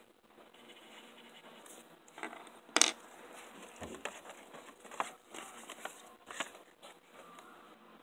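Thin paper being handled and unfolded, rustling and crinkling, with a sharp tap just before three seconds in and a few smaller knocks later.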